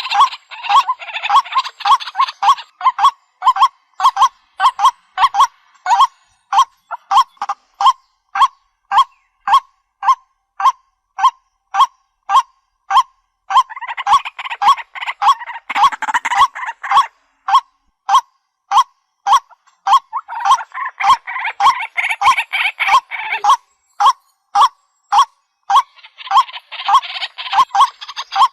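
White-breasted waterhen calling: short, loud croaking notes repeated steadily at about two a second, with bouts of harsher, denser calling joining in three times.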